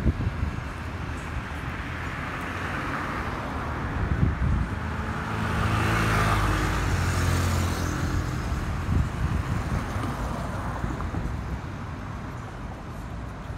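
Airbus A320neo jet airliner with CFM LEAP-1A turbofan engines flying overhead: a jet rumble that swells to its loudest about six to eight seconds in, then slowly fades. A few short low thumps of wind on the microphone.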